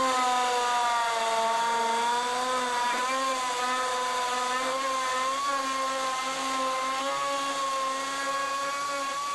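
Pneumatic die grinder running at a steady high whine as its cutting bit trims the edge of a fiberglass aircraft engine cowling, the pitch wavering slightly as it cuts.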